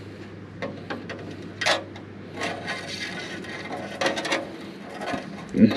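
Hand tools and metal hardware being handled: irregular clinks, knocks and scrapes over a steady low hum, with a heavier knock near the end.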